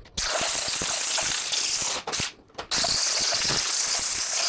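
Air ratchet running on a fastener: a hiss of exhaust air with fast ratcheting clicks, in two long runs with a short blip between.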